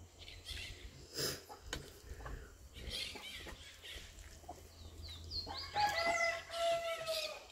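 A rooster crows once near the end, a drawn-out call with a falling tail, over soft, scattered clicks and taps.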